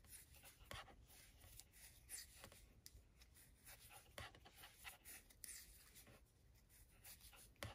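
Faint, irregular clicking of metal knitting needles and rubbing of bulky cotton yarn as knit stitches are worked.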